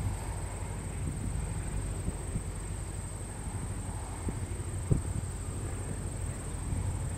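Distant biplane's piston engine droning steadily as it flies past, under a steady high trill of crickets, with one short knock about five seconds in.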